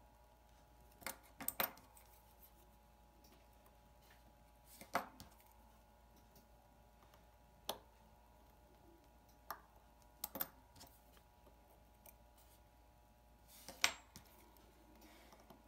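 Scattered small metallic clicks and taps of watchmaker's tools and parts on a Seiko 6105 watch movement as its winding bridge is taken off, each a second or more apart, the sharpest near the end. A faint steady hum lies underneath.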